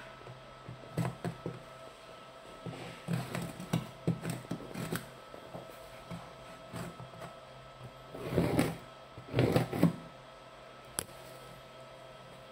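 Cardboard shipping box being handled, shifted and set down on a table. Scattered light knocks and taps, then two louder scraping rustles a little past the middle.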